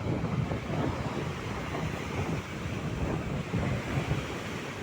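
Strong wind buffeting the microphone over the wash of large breaking waves, rising and falling in gusts.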